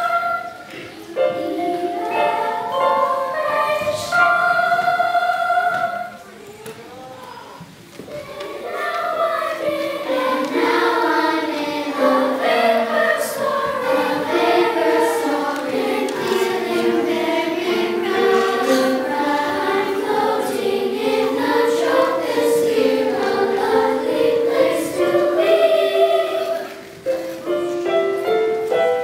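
Children's treble choir singing together, accompanied by mallet percussion and piano. The singing drops to a quieter stretch for a couple of seconds about six seconds in, then comes back at full level.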